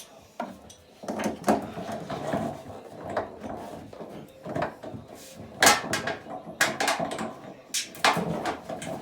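Irregular clicks, knocks and scraping of a tool working on a bath tap's fixing nut as it is tightened, with a sharp knock about five and a half seconds in and several more later.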